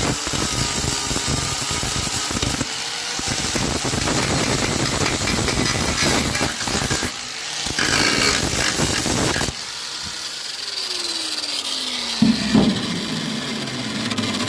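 Grinder grinding down fresh flux-core weld beads on rusty truck-bed sheet metal: a harsh, loud grinding noise that eases off twice, then drops away about two-thirds through as the disc spins down with a falling whine.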